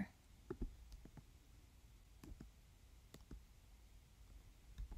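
Near silence with a handful of faint, short clicks spread through it.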